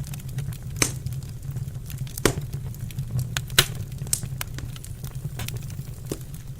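Wood fire crackling in a fireplace: a stream of small snaps and pops, with a handful of louder ones, the loudest about three and a half seconds in, over a steady low rumble.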